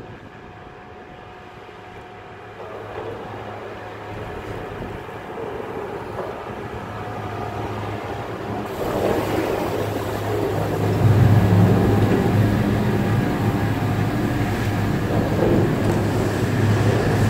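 Chairlift machinery humming steadily, growing louder as the chair runs into the top terminal. From about nine seconds in, a louder rushing noise takes over: skis sliding on snow, with wind on the microphone.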